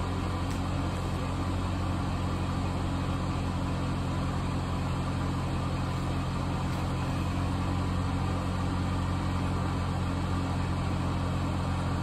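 Denbig portable air conditioner running with its compressor just kicked in and the fan on low: a steady hum with several low tones.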